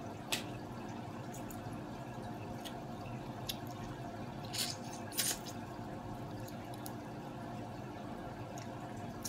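Wet mouth sounds of eating seafood by hand: sucking and lip smacks on crab pieces, with a few short sharp smacks, the loudest about halfway through. Under them runs a steady low hum.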